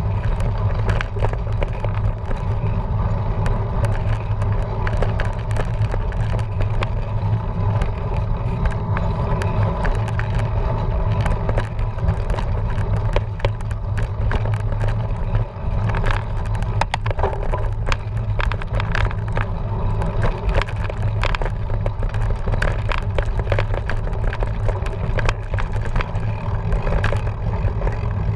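Cyclocross bike being raced over a dirt trail: a steady loud rumble with constant rattles and clicks from the bike over rough ground.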